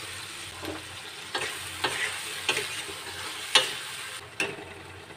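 Tomatoes and green peas sizzling in hot mustard oil in a steel kadhai while a steel ladle stirs them, knocking and scraping against the pan about seven times. The loudest knock comes about three and a half seconds in.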